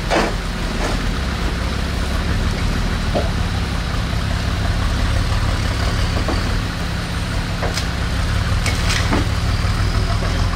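Off-road 4x4 engine running steadily, with a few sharp knocks and clicks scattered through.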